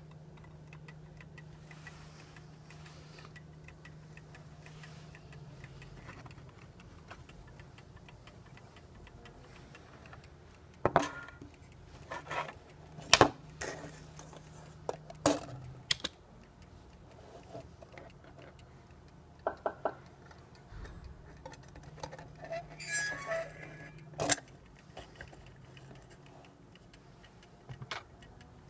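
Scattered sharp clicks and knocks of small metal and plastic parts as a small clock is handled during repair, with a brief jingle of small parts later on, over a steady low hum. The first third is only the hum.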